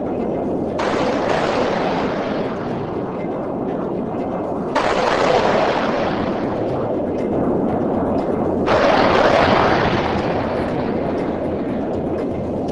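Sound effects of jet aircraft rumbling while firing missiles: three missile launches about four seconds apart, each a sudden rush of rocket noise that fades away over a few seconds.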